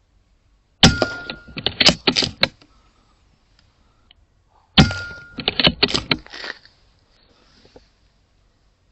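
Two shots from an Airmaks Krait L .22 pre-charged air rifle, about four seconds apart, each a sharp crack with a brief steady ring, followed by a rapid run of clicks and knocks lasting over a second.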